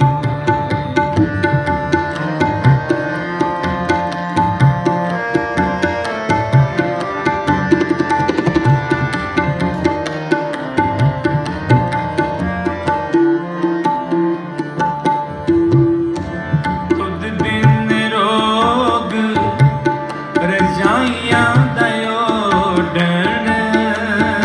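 Harmonium and tabla playing a kirtan melody: held reed chords under a steady run of tabla strokes. A man's singing voice comes in with gliding, ornamented phrases about three-quarters of the way through.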